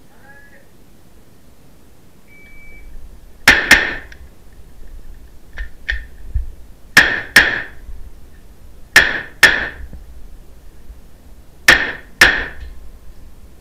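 A short electronic beep from a shot timer, then a Beretta CX4 Storm 9mm carbine firing four quick pairs of shots, each pair a third to half a second apart, echoing in an enclosed indoor range. Two fainter cracks come between the first and second pairs.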